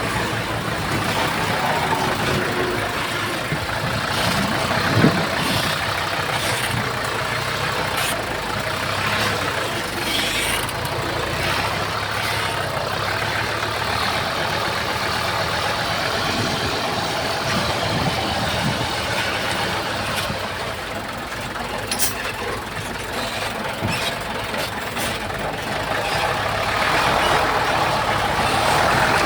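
Heavy earthmoving machine's diesel engine running steadily, with occasional sharp clanks and knocks.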